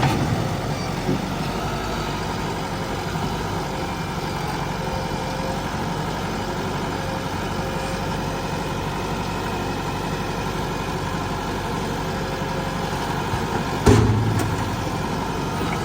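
Heavy diesel engines of a backhoe loader and a tractor running steadily at low revs. Near the end there is one sharp knock, followed by a brief louder, deeper engine note.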